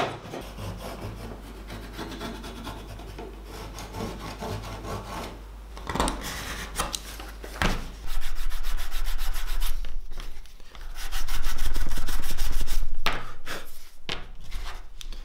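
Leather pieces being worked by hand, with quick, repeated scraping and rubbing strokes along their cut edges. There are two sharp knocks about six and seven and a half seconds in. The strokes grow louder about eight seconds in and are loudest for a couple of seconds around eleven to thirteen seconds.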